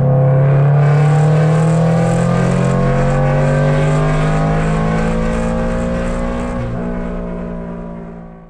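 Straight-piped Toyota GR86's 2.4-litre flat-four exhaust while driving, its pitch rising slowly under light acceleration, then fading out near the end.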